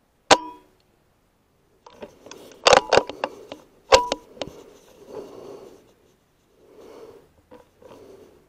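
Logun S16 .22 PCP air rifle firing slugs: a sharp crack with a brief metallic ring, then a quick run of loud clicks as the action is worked, and a second alike shot about four seconds in. Softer handling noises follow.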